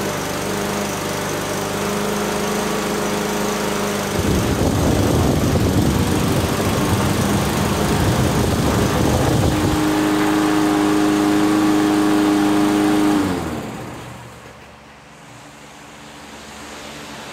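Tecumseh 6.5 hp single-cylinder engine on a Toro self-propelled lawn mower running steadily, now starting after the repair. About 4 s in it gets louder and rougher, then settles to a steady, higher engine note, and about 13 s in it winds down and stops.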